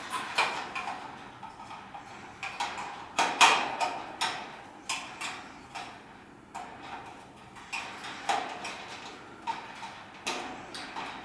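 Irregular clicks, knocks and rattles as parts of a wire birdcage are handled and fitted against the metal bars, some strikes with a short metallic ring.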